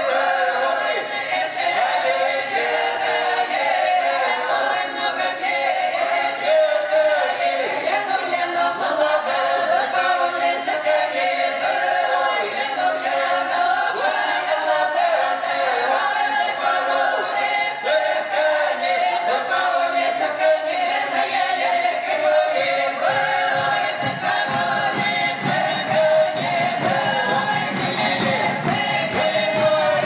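A folk ensemble of women's voices with one man sings a southern Russian karagod (round-dance) song a cappella, loud and in close chorus. Low thumps join the singing in the last several seconds.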